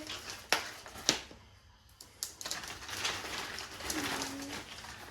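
Plastic packaging being handled and opened: a few sharp crinkling snaps, then a stretch of rustling around the middle.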